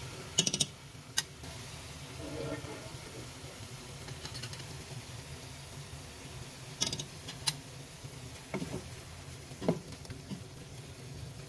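A spoon clicking and knocking against a pot of simmering chicken a handful of times, about twice near the start and several more between seven and ten seconds in, as spices are added and the chicken is stirred, over a steady low background hum.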